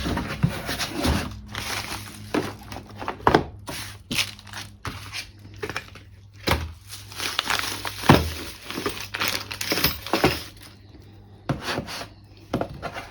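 Cardboard boxes and packaging being handled and opened: irregular crinkling, rustling and tearing with small knocks, over a steady low hum.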